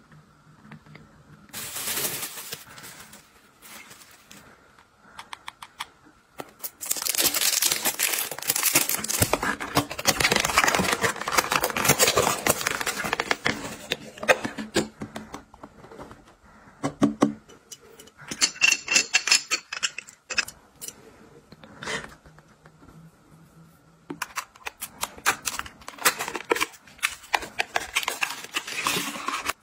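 Hands unwrapping and handling cosmetic packaging: crinkling, tearing and rustling of wrapping and paperboard boxes in irregular bursts, with a long stretch of dense crackling in the middle and scattered clicks and taps.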